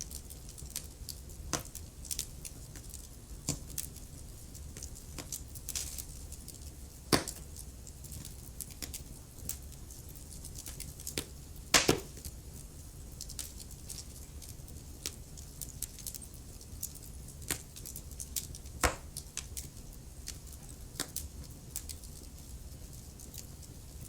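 Wood fire crackling in a fireplace: irregular snaps and pops over a low steady rumble, with two louder pops about a third of the way in and about halfway.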